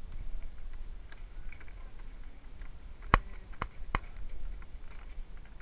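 Sharp wooden creaks and knocks from a howdah bench shifting under its riders as the elephant walks, three close together about three seconds in, over a low steady rumble.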